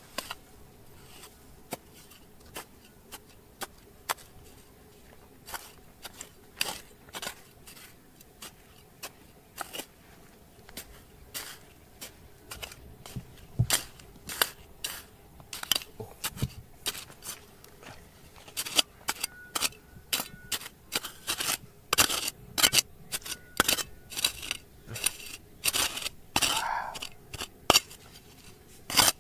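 A hand tool scraping and knocking against stones and gravel: a run of irregular sharp clicks and scrapes, sparse at first and coming thick and fast in the second half.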